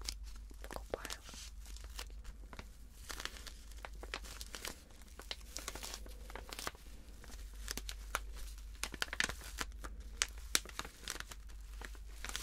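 Plastic wrapping of a pack of cotton pads crinkling as fingers squeeze and turn it, a steady run of small irregular crackles.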